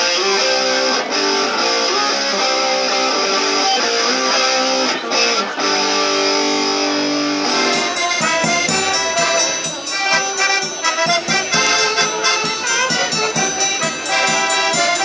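Instrumental background music with guitar, then about halfway through a change to a live folk band: accordion, saxophone and drum playing a quick dance tune.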